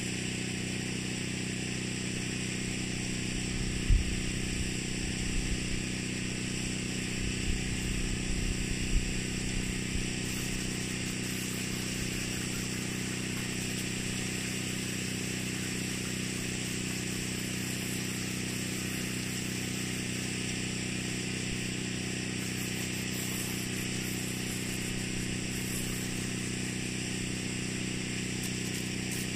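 A motor running steadily, a constant drone, with a few low thumps about four to ten seconds in.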